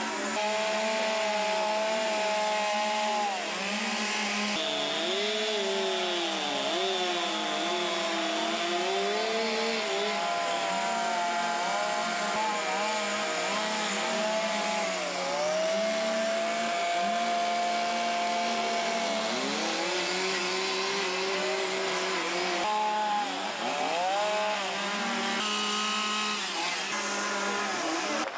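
Several chainsaws with carving bars running at once, their engines revving up and down at shifting pitches over a steady lower drone.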